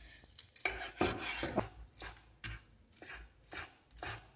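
Kitchen knife chopping cooked pork lung on a wooden cutting board: a series of irregular knife strokes, roughly two a second.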